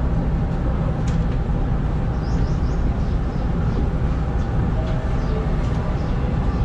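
Steady low hum of a renewed Hanshin 5500-series electric train standing still at a platform, heard from inside its cab, with a faint click about a second in and brief faint high chirps around two seconds in.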